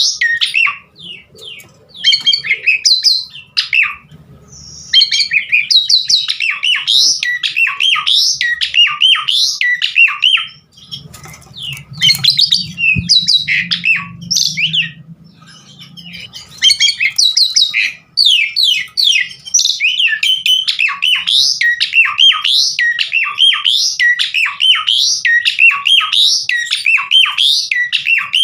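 An Asian pied starling (jalak suren) sings continuously, a fast, varied string of whistles, chatters and harsh notes broken only by short pauses.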